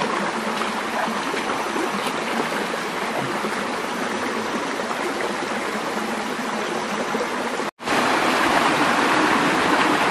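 Shallow rocky forest stream running over stones: a steady rush of water. It cuts out for an instant about three-quarters of the way through, then comes back a little louder.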